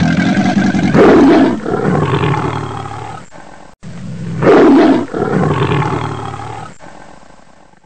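A big cat's roar, a recorded roar played twice over in the same form, the second time starting just under four seconds in.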